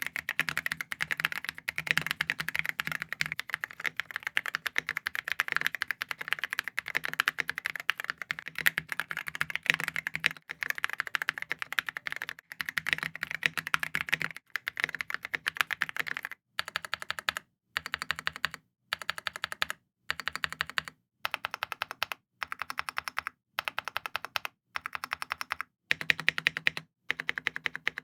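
Typing on a Keychron mechanical keyboard with pre-lubed Silk Palm linear switches in a foam-filled case: a fast, muted, foamy clacking. It runs without a break for a little over half the time, then comes in short bursts about a second long with brief silent gaps between them.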